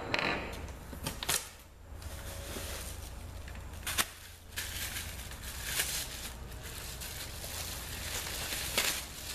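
Packing material rustling and crinkling as drill press parts are unpacked, with a few sharp knocks and clicks of parts being handled.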